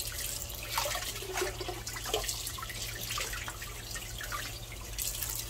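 Kitchen tap running onto a cast-iron frying pan held in a sink of water, with irregular splashing as a hand rubs and turns the pan under the stream.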